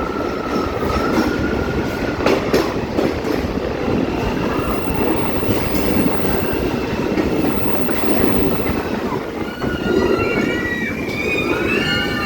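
Passenger train running on the rails, with a continuous rumble of wheels on track. A few sharp clicks come about two seconds in. Steady high-pitched wheel squeal, typical of a train rounding curves, wavers and comes and goes near the end.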